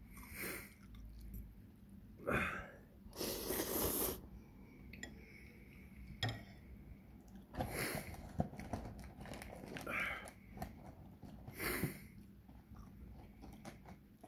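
A person chewing and crunching food close to the microphone, in irregular bites. There are a few louder noisy bursts, the loudest about three to four seconds in.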